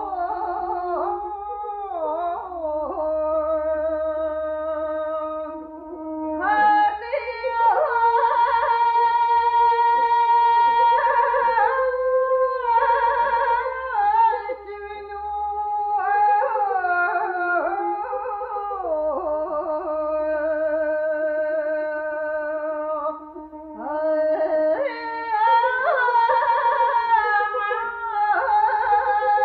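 Mongolian long song (urtyn duu) sung by a male voice: long held notes with wavering ornaments and pitch glides, over an instrumental accompaniment. The singing grows louder about six seconds in and again near the end after a brief dip. This is an archival 1976 radio recording with a low hum beneath.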